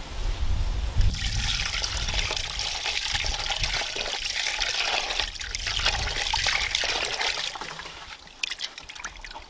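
Water pouring and splashing as peeled prawns are rinsed in a vessel of water, starting about a second in and dying down near the end to a few drips and small splashes.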